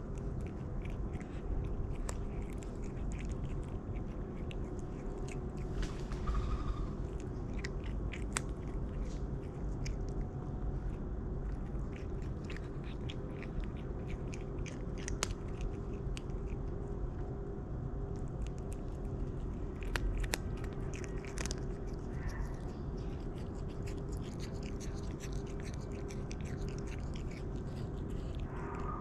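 A black-and-white cat crunching dry kibble, with many small crisp crunches at irregular intervals over a steady low hum.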